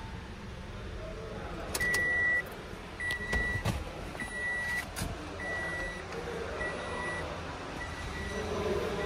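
Car's warning chime beeping, six short even beeps about a second apart that grow fainter, with a few clicks and knocks in between.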